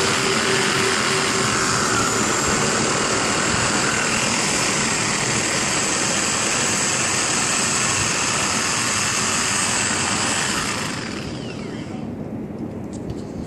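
A motor or engine running steadily and loudly, then winding down and fading about eleven seconds in.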